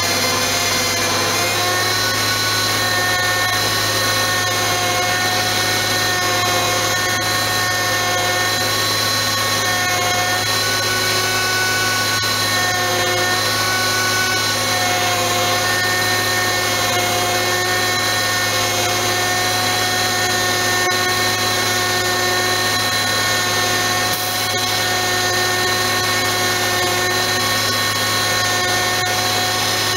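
Diesel engine of an oilfield bed truck, revved up and held at a steady high speed with a constant drone and whine, as the truck's winch pulls in a spun-out cement bulker.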